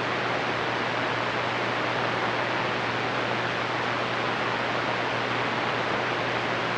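CB radio receiver hiss: open-squelch static on the 11-metre band between transmissions, steady throughout, with a faint low hum underneath.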